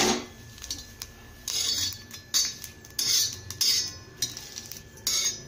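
Utensil scraping and pressing green chillies against a hot iron tawa as they dry-roast without oil, in about six short scrapes.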